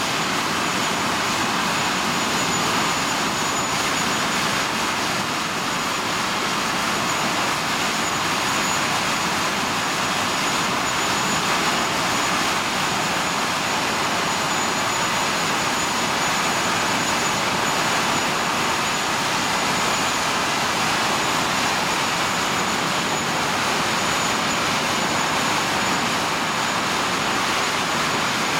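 English Electric Lightning's twin Rolls-Royce Avon turbojets running at taxi power, a steady loud jet roar with a thin, high, steady whine over it.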